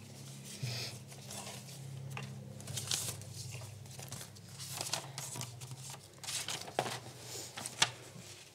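Paper rustling and crinkling in scattered short bits, over a steady low hum.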